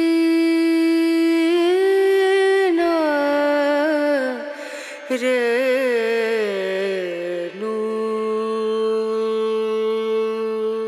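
Background film score: a wordless voice humming a long held note, then wavering down through an ornamented, sliding phrase, then settling on a lower held note.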